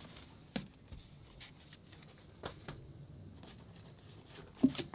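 Cardboard LP sleeves being handled and swapped: soft rustling and scattered light clicks, with a sharper knock near the end as a sleeve is set against a record case.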